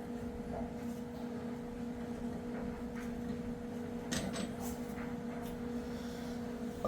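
Steady mechanical hum in the shop, with a few light metal clicks and clinks of suspension brackets and hardware being handled, the clearest about four seconds in.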